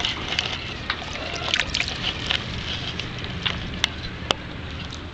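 Sea water sloshing and splashing around a keep net of live mullet, with scattered small clicks and ticks and two sharper ticks about four seconds in.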